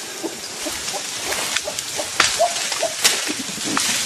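Rustling and snapping of dense forest undergrowth as an eastern lowland gorilla pushes through and pulls at leafy branches: a steady leafy rustle broken by sharp twig snaps, the loudest about two and three seconds in, with a few brief chirps among them.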